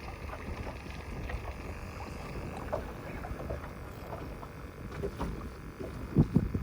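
Water slapping against the hull of a small jon boat, with wind rumbling on the microphone and scattered small knocks; a louder double knock comes about six seconds in.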